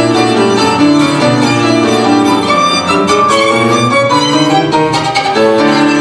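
Violin playing a melody of quickly changing notes over piano accompaniment, at a steady level.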